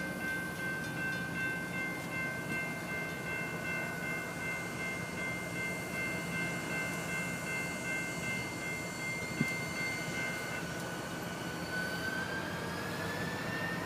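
Distant rumble of an approaching Norfolk Southern SD40-2 diesel locomotive, with several steady high tones held for about ten seconds, one of which glides upward near the end. A single short knock about nine seconds in.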